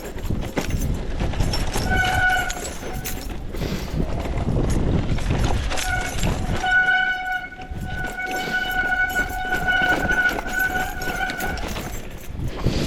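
Mountain bike going down a rough trail, with constant rattling and rushing noise. The brakes squeal with a steady high tone: briefly about two seconds in, then for about five seconds in the middle of the stretch.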